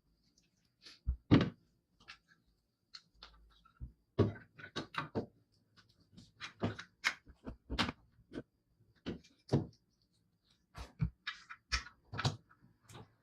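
Irregular clicks, taps and knocks of hard parts being handled and fitted together, with a few louder thumps, the loudest about a second in.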